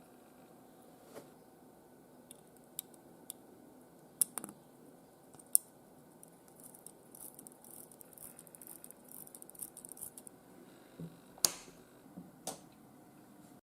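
Small metal watchmaker's tools clicking and tapping on a watch, with a few sharp clicks and a run of faint, rapid scratching in the middle.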